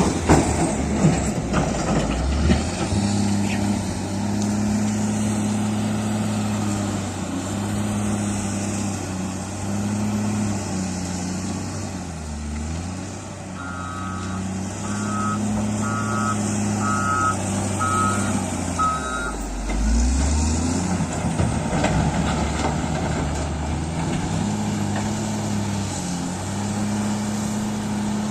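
Diesel engine of heavy construction machinery working, its pitch dipping and recovering twice with the load. Midway a reversing alarm beeps six times, about once a second.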